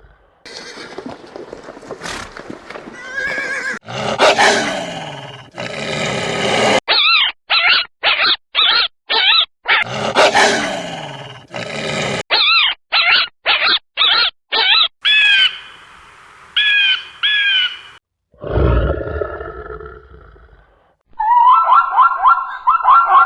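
A run of different animal calls edited back to back: long roar-like calls, then runs of short, rapidly repeated arched calls, and a fast pulsing call near the end.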